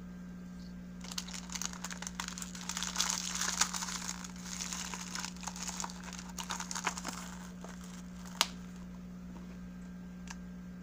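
Plastic packaging crinkling and rustling, with many small clicks, as a baby nasal aspirator and its plastic-wrapped spare filters are handled and packed into a clear plastic case; one sharp click about eight seconds in. A steady low hum runs underneath.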